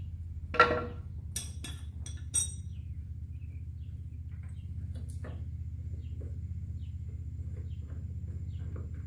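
Metal clanks and clinks of a wrench working a mower blade bolt: one loud ringing clank about half a second in, a quick run of lighter clinks over the next two seconds, and two more a few seconds later, over a steady low hum.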